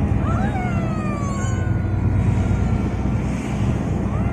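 Steady low drone of a car's engine and tyres on the road while driving. A few short, high falling tones sound over it in the first second and a half, and once more near the end.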